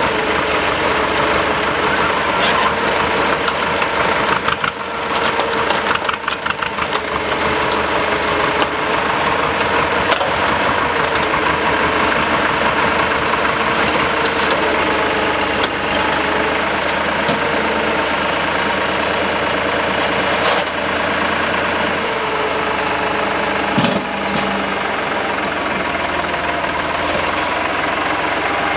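Tractor diesel engine running steadily, driving the hydraulics of a tractor-mounted backhoe as it digs soil. A few short knocks stand out from the engine sound.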